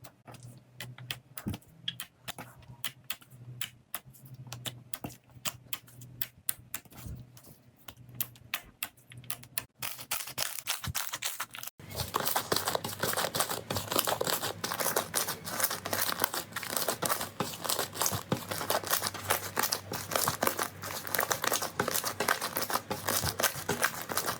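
Slime being squeezed and pressed by hand, giving sharp popping and crackling clicks: sparse at first, then after a cut about halfway through a louder, denser run of crackling.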